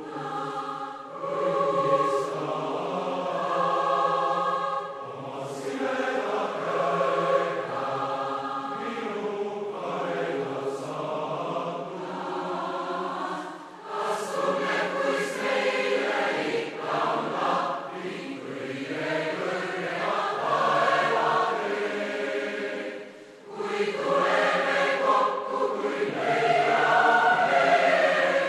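Massed choir singing in long phrases, with brief breaks between phrases about 14 and 23 seconds in.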